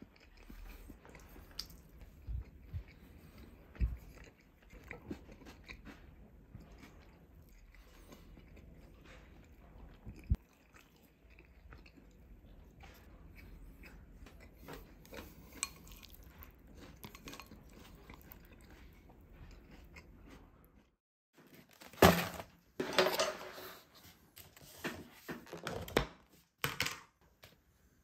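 Close-miked chewing and biting, with scattered small clicks. Near the end, after a short silence, there is a run of louder, sharper noises.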